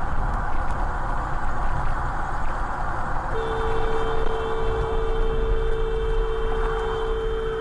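Steady tyre and wind noise inside a car at highway speed. About three seconds in, a car horn starts and is held in one long, steady blast, a warning at a coach cutting into the lane.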